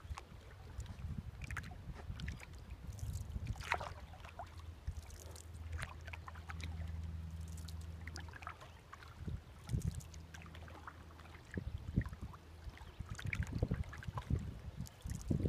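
Kayak paddle dipping in calm river water: small splashes and drips every second or so, over a low steady rumble.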